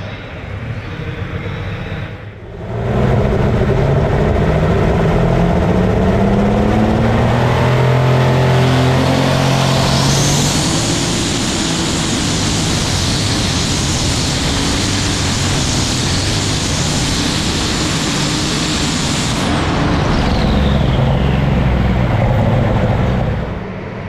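Alcohol-burning Case IH light super stock pulling tractor making a pull: after a short spell of engine noise it launches, its engine pitch climbing steadily for several seconds, then runs flat out very loud for about nine seconds. It backs off near the end with a high whine falling away.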